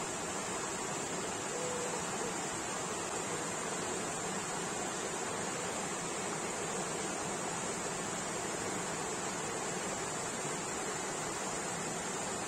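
Steady rushing of a river spilling over low, shallow cascades, with an even high hiss over it.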